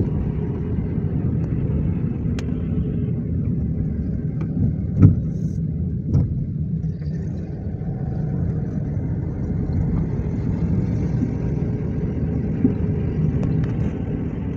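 Car heard from inside the cabin while driving: a steady low rumble of engine and road noise, with a couple of short knocks about five and six seconds in.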